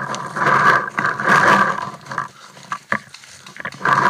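Heavy breathing close to the microphone, in loud noisy bursts about a second apart, with a few sharp clicks in a quieter stretch in the middle.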